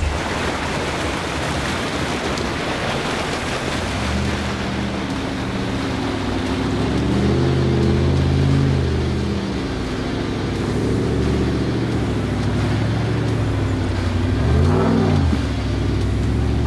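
Rushing creek water, with an off-road Jeep's engine revving up and down as it drives through the creek from about four seconds in. A quick rev rises and falls near the end.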